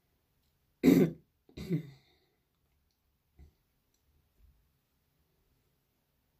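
A woman clearing her throat twice in quick succession, about a second in, the first one the louder, followed by a couple of faint clicks.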